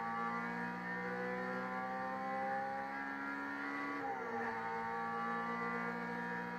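Race car engine heard from inside the cockpit, accelerating hard on track: its pitch climbs steadily, drops at an upshift about four seconds in, then climbs again in the next gear.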